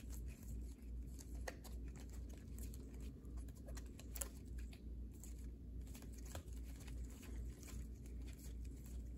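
Faint clicks and rustles of trading cards in rigid plastic holders being shuffled through by hand, scattered and irregular, over a low steady hum.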